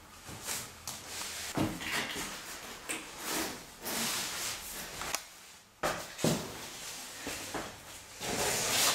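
Cardboard boxes and trays being handled: rustling and scraping, with a few dull knocks.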